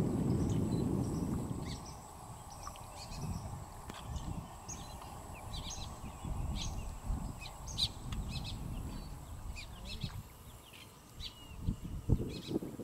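Many short, scattered bird chirps and calls from mangrove trees, while a low rumble from the boat fades out over the first two seconds.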